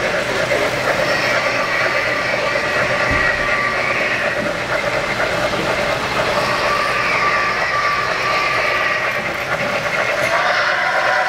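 O-scale three-rail model trains running on the layout, with a steady rolling rattle of wheels on the track under a busy hall din.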